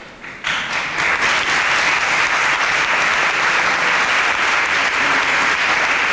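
Crowd applauding: the clapping starts suddenly about half a second in and keeps up steadily.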